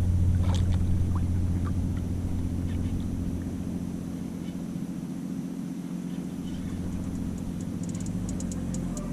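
Background music with a steady low bass drone that thins out in the middle, and a run of quick ticks near the end.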